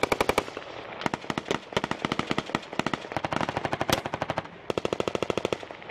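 Automatic gunfire in repeated rapid bursts of several rounds each, with one sharper single crack about four seconds in.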